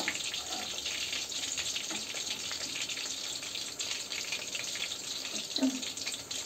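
Chicken pakoras deep-frying in hot oil in a steel kadai, a steady crackling sizzle of nearly finished pakoras. A metal slotted spoon knocks lightly against the pan a few times, the loudest knock near the end.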